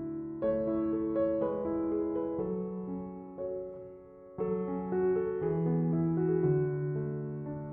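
Background piano music: gentle sustained keyboard chords changing every half second or so.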